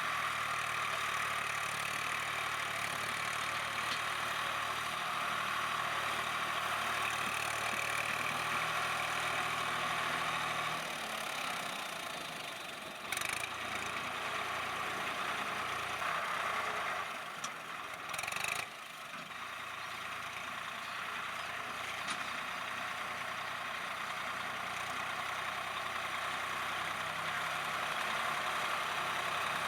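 Tractor diesel engine running steadily. About eleven seconds in, its low hum falls away and the sound goes quieter for a while. Two short sharp knocks come a few seconds apart, then it runs on.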